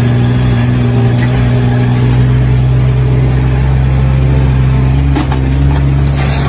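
Loud, steady engine noise with a constant low hum, holding at one pitch throughout.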